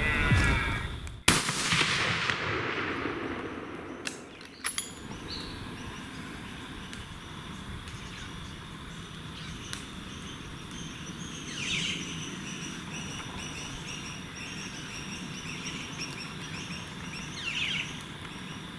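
A single hunting-rifle shot about a second in, its report rolling away for a couple of seconds. A few faint clicks follow, and birds chirp now and then.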